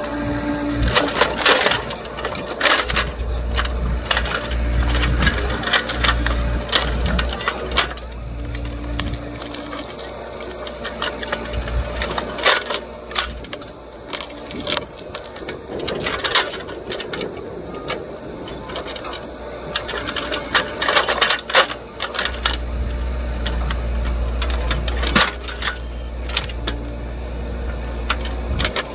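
Mini excavator's diesel engine running and working harder at times while the bucket digs into a tree stump's roots in dirt, with many sharp clanks, knocks and cracks from the bucket, soil and roots.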